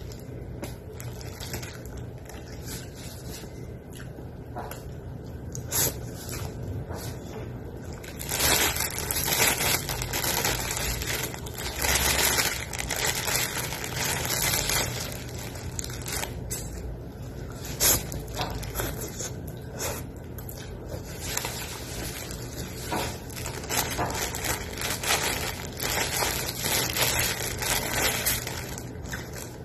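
A plastic bag of noodles crinkling and rustling in the hands as they are eaten from it with chopsticks, mixed with close chewing. It is quieter at first and busier and louder from about a third of the way in. A low steady hum runs underneath.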